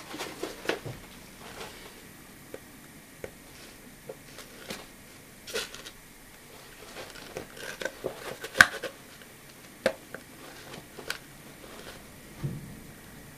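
Hands handling a camouflage fabric bag: cloth rustling with scattered sharp clicks and taps from its hard belt-adapter plates, the loudest click a little past the middle.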